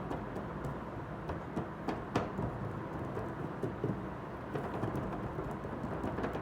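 Small clicks and taps of miniature kitchen utensils being handled, scattered irregularly over a steady low noise, with a sharper tap about two seconds in.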